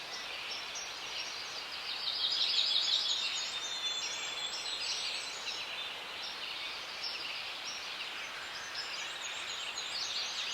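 Forest ambience: a dense chorus of many small birds chirping and twittering together, busier for a few seconds near the middle, over a soft steady hiss.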